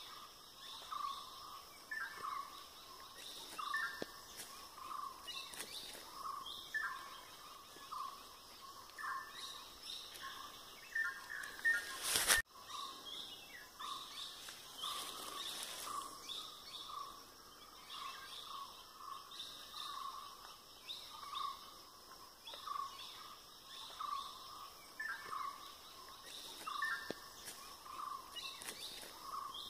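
Birds calling: one repeats a short low note about twice a second while others chirp higher and more sparsely, over a steady high hiss. A single sharp click cuts in about twelve seconds in.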